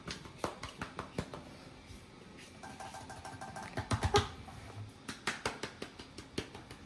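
Repeated light pats and taps of a hand on a small wooden stool and on a cat's back, with a cluster of heavier knocks about four seconds in as the stool is patted and the cat jumps up onto it.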